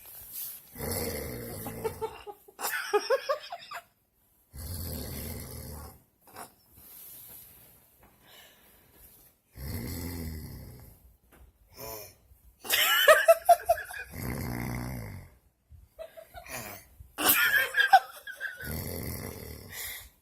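Snoring: a series of long snores a few seconds apart, some much louder than others.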